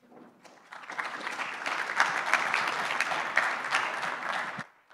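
Audience applauding: many hands clapping, swelling over the first second and dying away suddenly near the end.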